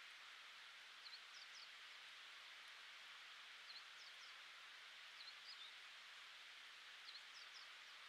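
Faint song of a small songbird: short high phrases of two or three quick chirps, repeated four times, over a steady soft hiss of background noise.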